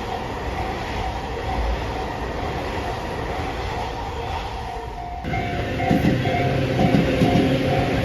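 Train passing at a railway level crossing: a steady rush of wheels running on the rails. About five seconds in, the sound changes abruptly and a level crossing warning bell is heard ringing in a repeating pattern over the louder train noise.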